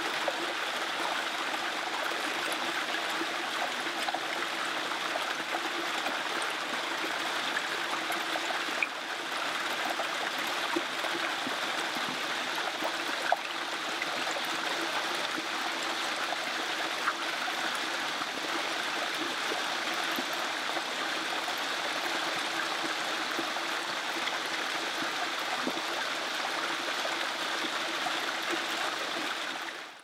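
Shallow water of a small rock-lined garden stream running and trickling over stones: a steady, even rush with a few faint clicks. It fades out right at the end.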